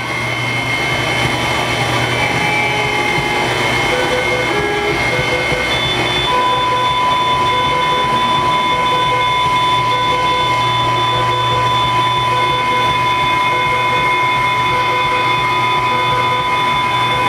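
Dense, steady noise texture from a live experimental sound performance: layered field-recording samples with electric violin and effects-processed voice, under a low hum and several held electronic tones, one steady high tone coming in about six seconds in.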